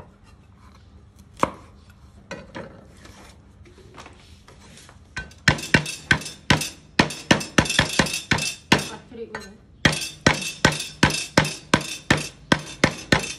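Steel cleaver chopping yardlong beans on a wooden chopping board. After a few scattered light knocks, a fast run of sharp chops begins about five seconds in, about four a second, pausing briefly about two-thirds of the way through before carrying on.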